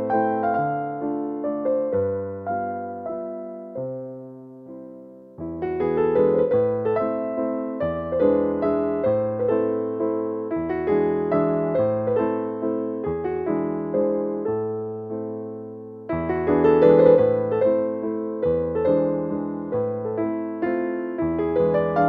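Background music: a gentle piano piece of chords and a melody, dying away about five seconds in, then starting again with a new phrase and swelling louder near the middle.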